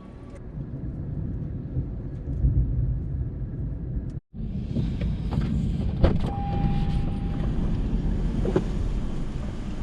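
Car interior noise while driving: a steady low engine and road rumble. About four seconds in it drops out briefly, then returns with a brighter hiss, a few faint clicks and one short steady beep a little past the middle.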